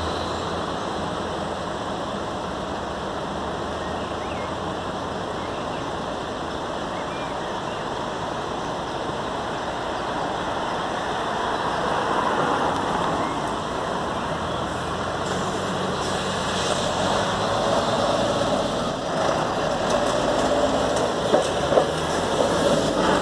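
Road traffic: vehicles idling and passing. It gets louder over the last several seconds as cars start moving again across the crossing.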